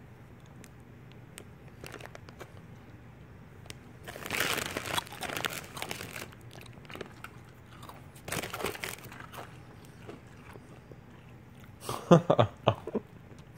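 Afghan hound puppy crunching and chewing a hard dog treat, in two short crunchy spells. A brief burst of voice comes near the end.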